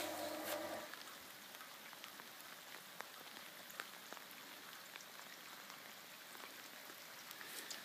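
Submersible pump humming, cutting out under a second in; it is a pump that runs almost constantly. After it, rain falling steadily with scattered drips.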